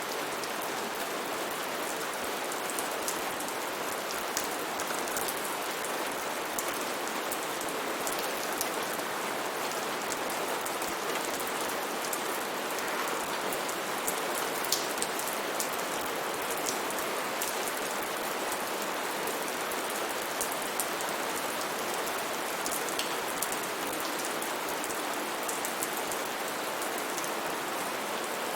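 Steady rain falling, a dense even hiss with scattered sharper drop ticks throughout.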